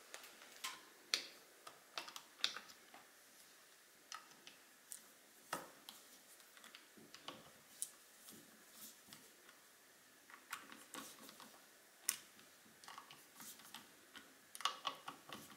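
Faint, irregular small metallic clicks and ticks as a hex-key driver seats in and turns the screws of a rifle scope ring, tightening it down. The clicks come in small clusters, thickest about a second in, around twelve seconds and near the end.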